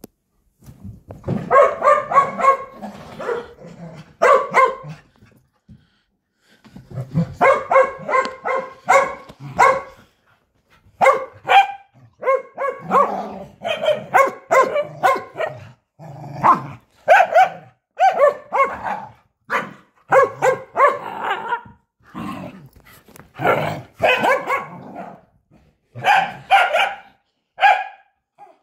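Corgi barking excitedly during a game of fetch, in long runs of quick, loud barks broken by a couple of short pauses.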